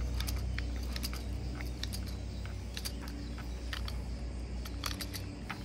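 Hand crimping tool being pumped to crimp a cable-railing tensioner onto stainless wire rope: scattered small metallic clicks at irregular intervals over a steady low hum.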